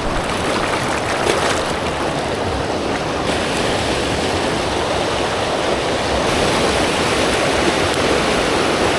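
Creek water rushing over rocks in shallow rapids: a steady, full rushing noise that grows slightly louder about two thirds of the way through.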